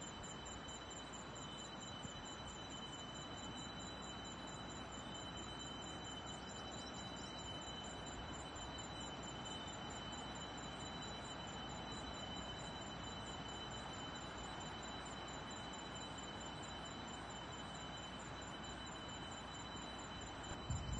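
Insects calling steadily in forest: two continuous high whines and a faster, rapidly pulsing chirp higher still, over a soft steady outdoor hiss.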